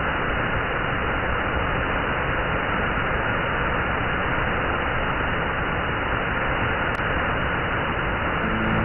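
Steady roar of a waterfall's rushing water, an even noise with no pitch to it. Music with sustained tones fades in near the end.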